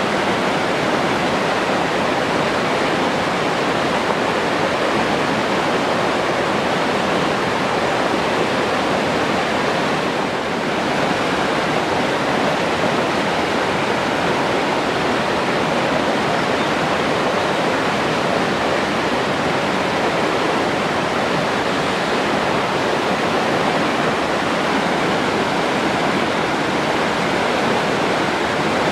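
Forest stream flowing over rocks: a steady, full rush of running water.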